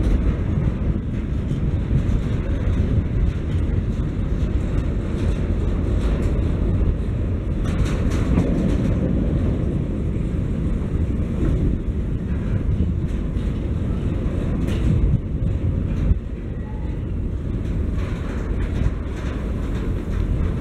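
Freight train of bulk hopper wagons rolling past: a steady low rumble of steel wheels on the rails, with a few sharp clicks and clanks from the wheels and couplings.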